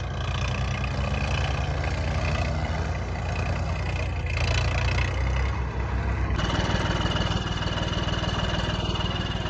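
Diesel tractor engines running steadily under load while pulling against each other. A steady high whine joins about two-thirds of the way through.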